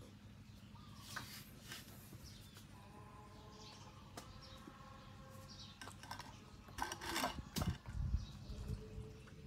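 A puppy taking and chewing sliced carrot and potato from a plate: a cluster of wet clicks and low knocks about seven seconds in, over a steady low hum.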